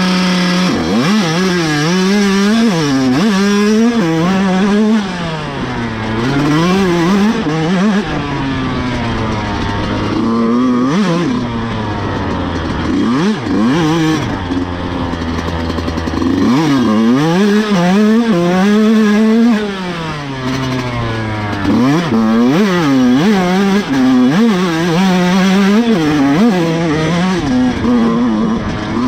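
Yamaha YZ125X's 125cc two-stroke single-cylinder engine, revved up and down over and over, its pitch climbing and dropping repeatedly, with a lower, steadier stretch about halfway through.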